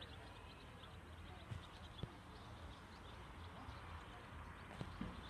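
Level crossing warning alarm pulsing quickly and evenly, faint over a low steady hum of outdoor background noise, with a couple of small knocks about a second and a half and two seconds in.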